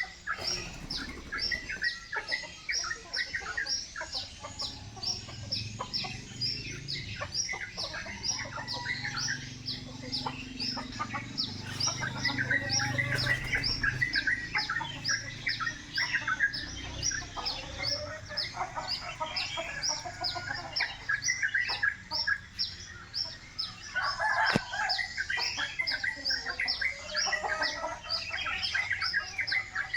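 Chickens clucking, over a steady string of short high chirps at about three a second.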